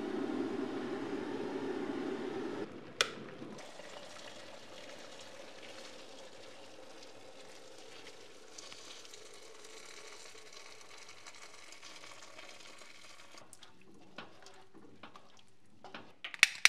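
A steady low hum cuts off with a click about three seconds in. After it an electric two-tier tea kettle heats water with a quiet, even hiss, and a few light clicks and knocks come near the end.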